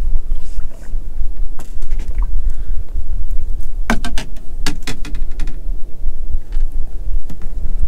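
Wind buffeting the microphone as a low, uneven rumble on a small drifting boat, with a cluster of sharp clicks and knocks about four to five seconds in.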